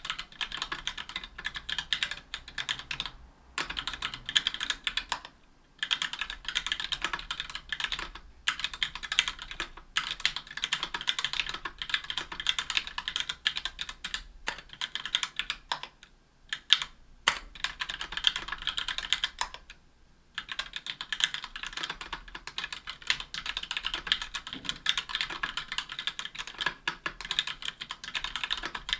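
Fast continuous typing on a 60% mechanical keyboard with an aluminium case and plate, Gateron Black Ink linear switches and GMK keycaps: a dense clatter of keystrokes bottoming out, broken by a few brief pauses.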